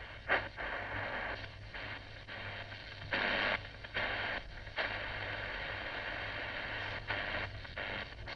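Shortwave static and hiss from the speaker of a Philips DL225 portable radio as its dial is tuned across the 60-metre band. Louder bursts of noise come and go as the pointer moves, the strongest about three seconds in, over a steady low hum.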